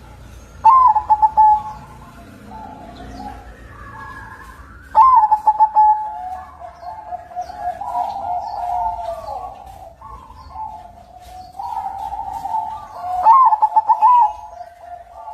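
Zebra dove (perkutut) of the white 'kapas putih' kind cooing repeatedly. Loud stuttering phrases come about a second in, about five seconds in and near the end, with softer drawn-out coos between.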